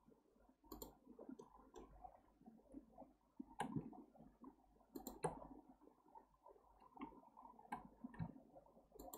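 Faint computer mouse and keyboard clicks, about ten irregular taps, over low room noise.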